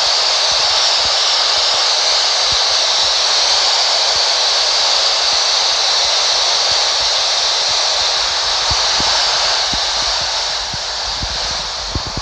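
Uniden PRO-401HH handheld CB radio's speaker giving steady open-squelch static hiss on channel 6 (27.025 MHz AM), with faint crackles. No signal or skip is heard: the band is closed.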